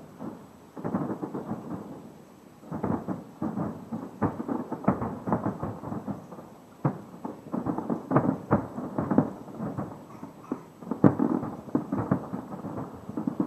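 Distant aerial fireworks bursting in quick succession: a dense run of muffled bangs and booms of varying loudness, with a short lull about two seconds in.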